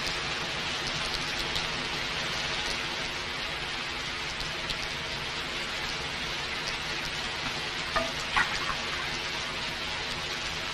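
Steady hiss with scattered faint crackles, and two brief louder sounds about eight seconds in.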